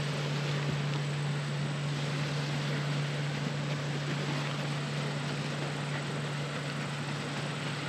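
A steady low mechanical hum at one even pitch, with a constant hiss over it, from a motor or engine running in the background.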